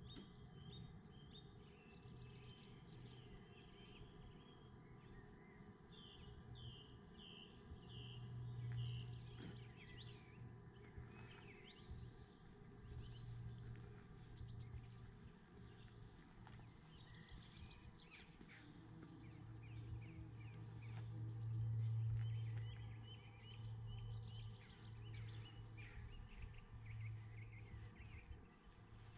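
Faint birdsong, runs of short repeated chirps, over a low hum that swells twice, about a third of the way in and again past the middle.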